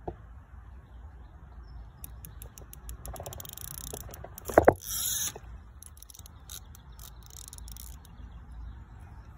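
Fishing reel drag clicking rapidly as a carp pulls line off the feeder rod, with a loud knock about halfway through as the rod is lifted off its rest to strike, followed by a short burst of line going off the reel.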